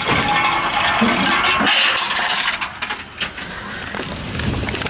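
Tomra 42 reverse vending machine taking an aluminium can inserted bottom first: the mechanism running with a dense metallic rattle and clatter as the can is drawn in, easing off a little about three seconds in.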